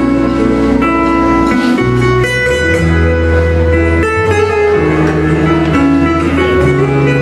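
Live band playing an instrumental passage without vocals: acoustic guitars over a sustained low bass line that moves from note to note.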